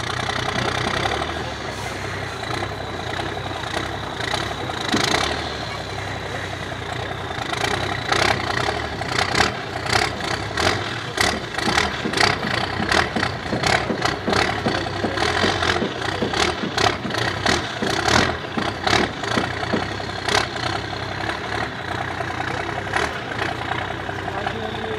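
MAN trial truck's diesel engine running under load as the truck crawls, steeply tilted, out of a deep rut, with a high steady whine over it. Through the middle stretch a rapid run of sharp knocks and cracks rides over the engine.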